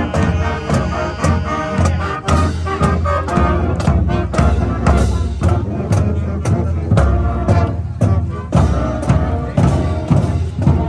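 Band music with brass over a steady drum beat, about two beats a second.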